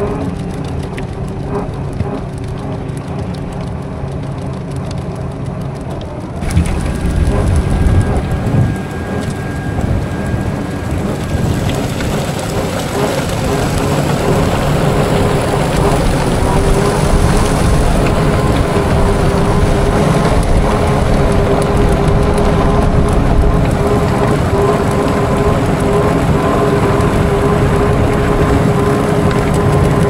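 Farm machinery running with a steady engine drone while it throws out a load of manure-laden snow and dirt; the noise of the thrown material jumps up about six seconds in and stays loud.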